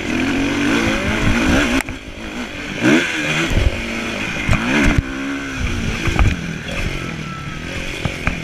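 Motocross bike engine close to the microphone, revving up and falling back again and again as the throttle is worked over jumps and along the track. Several sharp knocks and some clatter come through as the bike lands and hits bumps.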